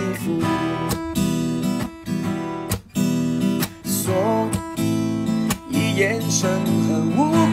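A gentle song on strummed acoustic guitar, with a voice singing the melody about four seconds in and again near the end.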